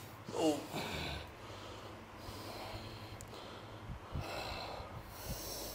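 A man breathing heavily, with a short grunt about half a second in and a longer hissing breath around four seconds in.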